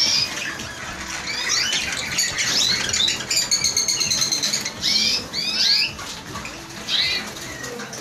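Many small caged birds, canaries and finches, chirping with short high calls. A rapid trill of evenly repeated notes comes in a little over three seconds in and lasts about a second.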